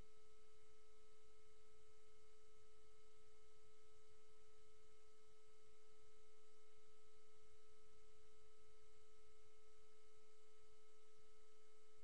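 A steady, unchanging electronic tone at one pitch, with fainter overtones above it, over faint hiss.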